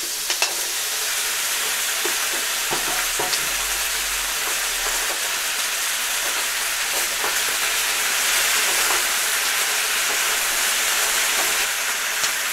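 Vegetables frying in oil in a non-stick pan, a steady sizzle, as boiled pasta is tipped in and stirred through with a wooden spatula. A few light knocks of the spatula and bowl against the pan.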